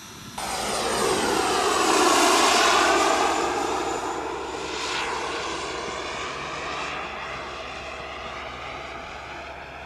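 Turbine engine of a radio-controlled model jet flying past low. It starts abruptly, swells to its loudest about two seconds in with its pitch sweeping down and back up as it passes, then slowly fades away.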